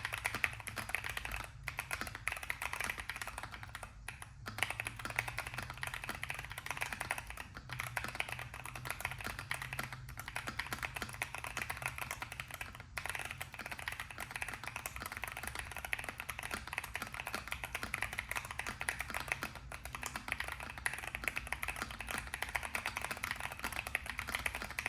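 Keychron Q1 V2 mechanical keyboard with Keychron K Pro Banana tactile switches being typed on fast and without letup: a dense stream of key clacks, broken by a few brief pauses.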